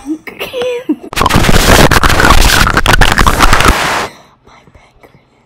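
Soft whispering, then about a second in a sudden, very loud, distorted rushing crackle that overloads the phone's microphone for about three seconds and cuts off abruptly.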